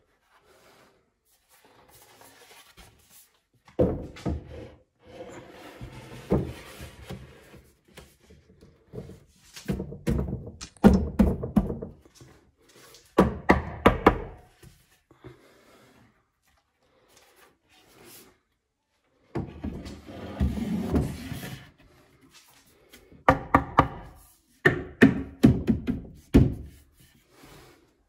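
Wooden cabinet shelves being handled and set in place: knocks, thunks and board rubbing against the cabinet sides, in five bursts with short pauses between.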